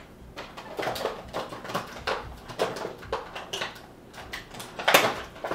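Plastic toy packaging being handled and pulled at: a string of short, irregular crinkles and rustles, the loudest a little before the end.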